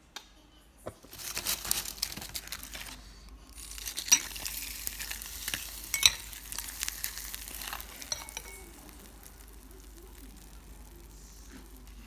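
Fried crackers (kerupuk) crackling and fizzing as they soak up soup broth in a bowl while a spoon stirs them, with a couple of sharp clicks of the spoon. The crackling fades to a faint hiss about eight seconds in.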